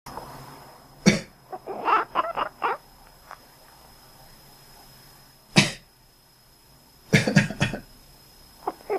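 A person coughs and a cat answers each time with a quick run of short, quack-like chirping calls. One cough comes about a second in and another past halfway, and a cluster of coughs and calls comes near the end.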